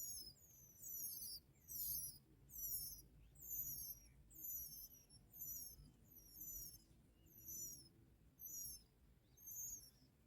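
Bar-winged prinias calling at the nest: a thin, high-pitched, wavering call that falls in pitch, repeated about once a second, each call lasting around half a second.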